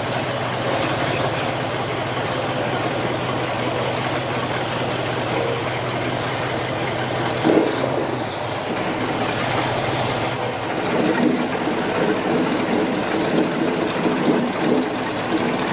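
Airboat engine and propeller running steadily; a little past ten seconds in, the engine note changes. A brief falling whistle sounds about halfway through.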